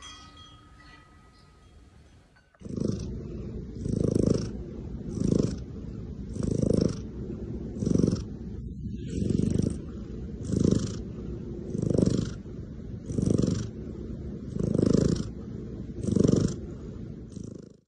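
Domestic cat purring while being stroked on the head. The purr starts about two and a half seconds in and swells and eases in a steady breathing rhythm, roughly one swell every second and a quarter.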